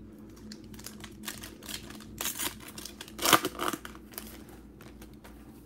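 A 2020 Panini Prizm baseball card pack being torn open by hand: the foil wrapper crinkles in a run of short rips, loudest a little past two seconds and again around three and a half seconds in.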